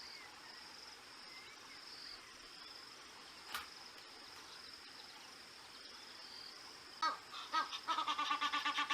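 Bird calls over a steady high-pitched drone of insects. About seven seconds in, a bird starts calling loudly, a fast run of repeated pitched notes.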